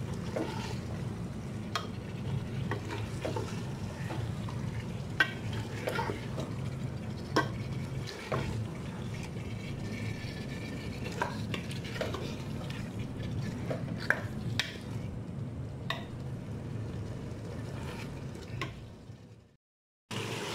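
A wooden spoon stirring chicken pieces frying in masala in a pressure-cooker pot, knocking and scraping against the metal side every second or so, over a steady low hum. The sound fades out near the end.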